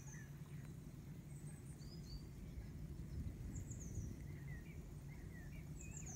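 Small songbirds giving short, high chirps and calls again and again, over a steady low rumble.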